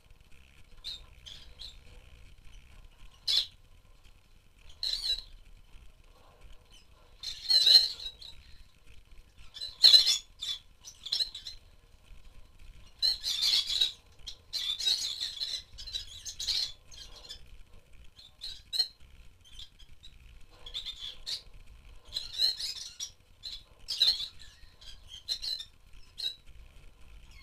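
Rosy-faced lovebirds calling: scattered short, high-pitched chirps and squawks, some single and some in quick clusters.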